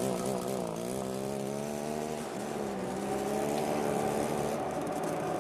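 Chainsaw engine running and revving, its pitch dipping and rising several times.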